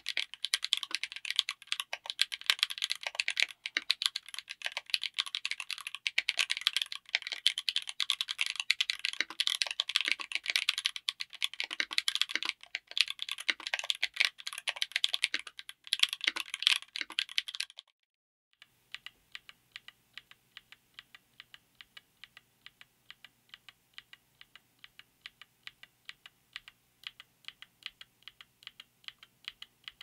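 Mechanical keyboard with Akko V3 Cream Blue Pro tactile switches on an FR4 plate in an aluminium case, under ABS double-shot Cherry-profile keycaps. Fast two-handed typing, a dense run of clacks, goes on for about eighteen seconds. After a short pause come single keystrokes, quieter and at an even, steady pace.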